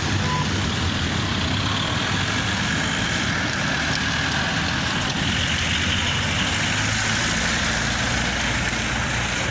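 A heavy vehicle's engine idling steadily, with the general noise of street traffic around it.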